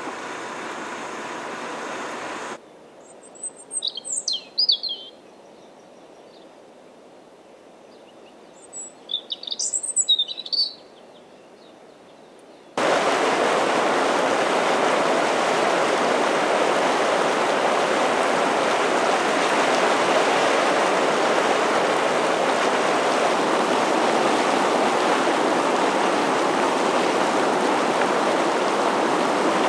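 Volcanic hot spring boiling hard under clouds of steam: a loud, steady rush of churning water that starts suddenly a little under halfway in and holds to the end. Before it, a short stretch of softer noise from a bubbling mud pool, then a quiet pause in which a bird chirps twice.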